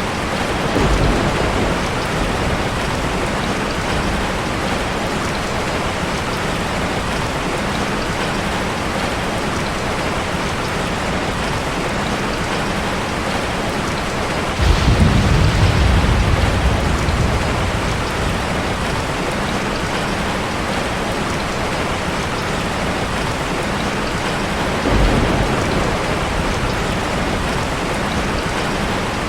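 Steady rain, with low rumbles of thunder: a light one about a second in, a loud one about halfway through that fades over a few seconds, and a shorter one near the end.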